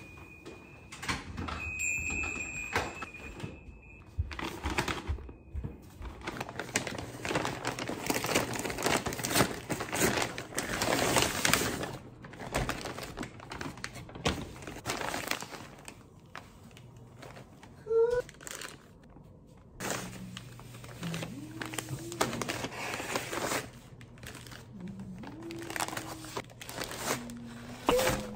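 Paper takeout bag rustling and crinkling as it is handled and opened and paper-wrapped burgers are pulled out, with clicks and knocks from the handling. A front door is shut near the start.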